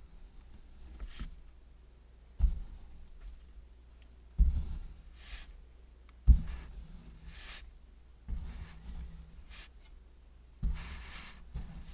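Kinetic sand being cut and scraped with a metal tool, about six strokes roughly two seconds apart, each a sharp tap followed by a gritty scraping crumble that fades within a second.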